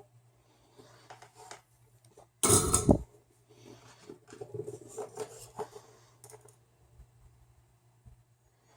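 Soldering work on an LED strip: faint small clicks and taps as a wire is held to the strip's pad, over a steady low hum. Two and a half seconds in there is one loud, short breathy rush of noise.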